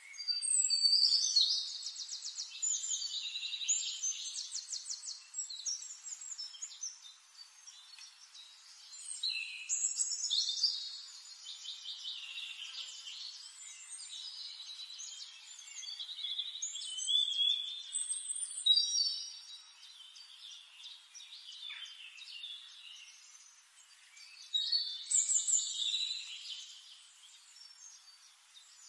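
A songbird singing four long, complex phrases of rapid trills and whistled notes, separated by gaps of several seconds.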